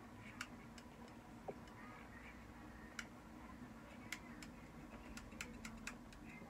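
Faint, irregular clicks from a small curling iron's clamp being worked on a lock of hair, several in quick succession toward the end, over a low steady hum.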